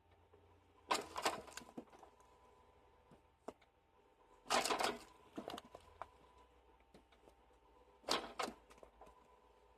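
Homemade firewood-cutting machine working: three bursts of clattering knocks, about a second in, around the middle and near the end, over a faint steady hum.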